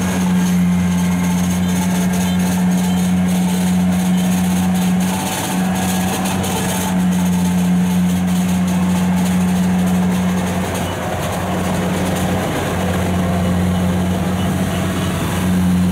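Kubota DC-95 rice combine harvester's diesel engine running with a steady low drone.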